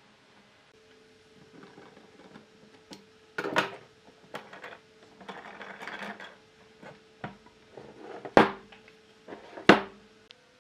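Pipe clamps being loosened and taken off a glued-up wooden block: metal clamp jaws clanking and rattling on the steel pipes and knocking against the wood. A sharp knock about three and a half seconds in and two louder ones near the end.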